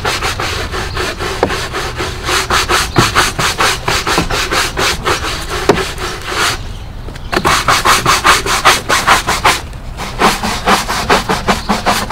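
Stiff-bristled deck brush on a pole scrubbing a painted wooden deck skirt board, working cleaning solution into mold in quick back-and-forth strokes, about four a second. There is a short pause about seven seconds in and a briefer one near ten seconds.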